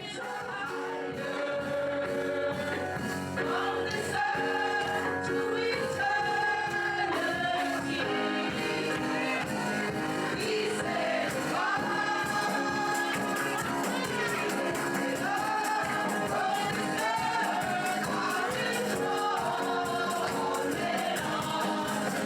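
Gospel worship song: voices singing over sustained chords, with percussion keeping a beat.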